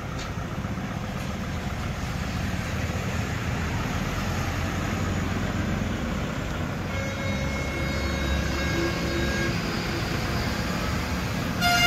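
Kubota MU5502 tractor's diesel engine running steadily as the tractor rolls forward down the steel loading ramps off a trailer, with road traffic passing. A vehicle horn toots briefly right at the end.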